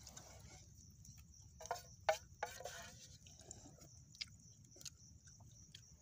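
Wood campfire crackling with scattered sharp pops, over a steady high insect drone. About two seconds in, a few short pitched vocal sounds stand out as the loudest thing heard.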